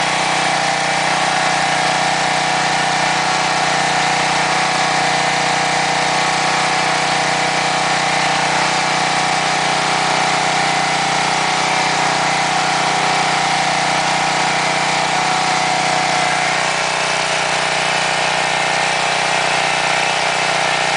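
Coleman Powermate Premium Plus 7200 portable generator's engine running steadily, powering a flux-core welder.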